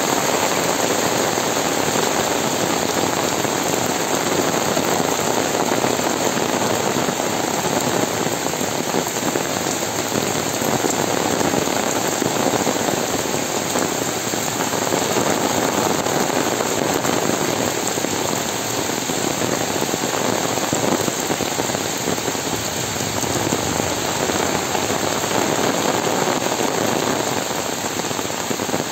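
Heavy rain falling steadily on a paved lane, walls and trees: a dense, even patter without a break.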